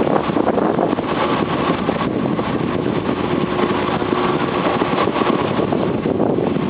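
Tour boat's engine running steadily under wind and water noise, with a faint steady hum joining about halfway through.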